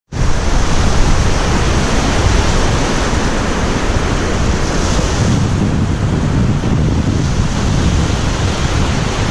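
Small sea waves washing up onto a sand and pebble beach, with wind buffeting the microphone and adding a low rumble.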